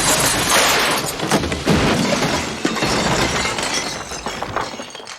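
Pile of metal scrap being churned and clashed together, a dense run of crashes and clanks with a few sharper hits, dying away over the last couple of seconds into scattered clinks.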